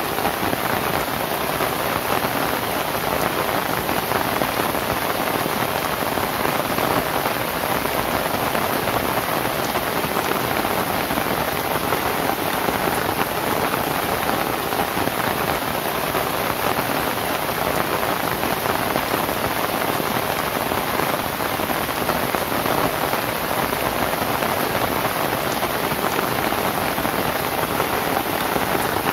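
Steady rain on a palm-leaf thatched roof and the foliage around it: an even, unbroken patter with no thunder.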